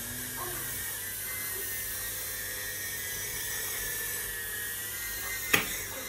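Tiny FPV micro quadcopter's motors spinning in flight, a steady high-pitched whine that wavers slightly in pitch. A single sharp knock sounds near the end.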